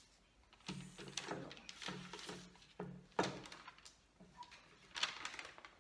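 Paper rustling and crinkling as a small wooden box is wrapped and handled, with a sharp knock about three seconds in as the box is set down on the table.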